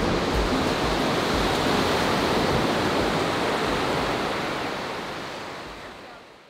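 Ocean surf and waves washing over a sandy beach, a steady rush of water that fades out over the last two seconds.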